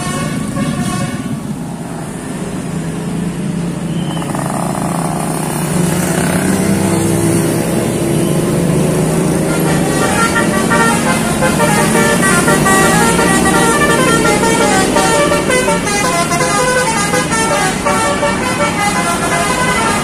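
Traffic of motorcycles and heavier vehicles passing, then from about halfway a multi-tone 'telolet' musical bus horn plays a repeating tune of short notes at several pitches.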